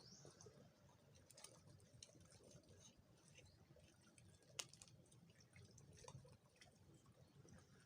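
Near silence with faint scattered clicks and crackles, and one sharper click about halfway through.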